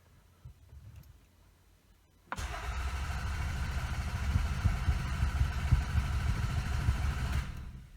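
Toyota Camry's starter motor cranking the engine for about five seconds without it catching, a steady whine over rapid uneven low pulses, then stopping. The engine turns over but will not fire because the EFI fuse has been pulled.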